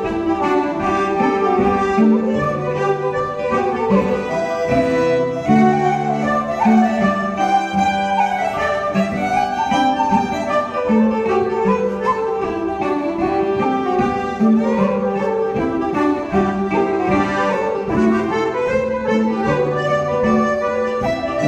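Irish traditional dance tune played live by flute, fiddle, accordion and bouzouki together, the melody instruments in unison over strummed bouzouki chords at a brisk, steady tempo.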